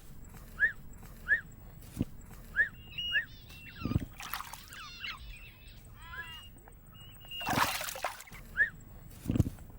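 Animal calls outdoors: a short high chirp repeating about once a second, with a busier run of warbling calls in the middle. Water splashes twice, about four seconds in and again near the end.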